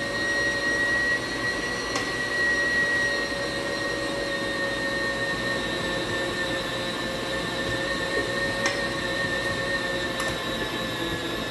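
Electric stand mixer running at a steady speed, its motor giving a constant whine as the beater mixes cake batter in the steel bowl. Faint clicks come about two seconds in and again near the end.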